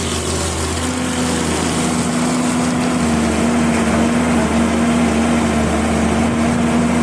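A small engine running steadily at an even pitch, with a constant hum that firms up about a second in.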